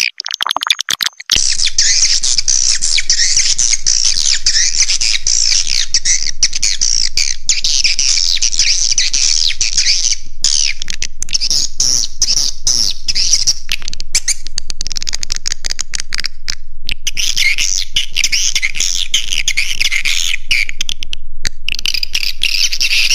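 Swiftlet roosting-call lure recording: a loud, dense chorus of high, fast chattering twitters from many swiftlets. It is choppy for about the first second and drops out briefly twice, a little before halfway and around two thirds of the way through.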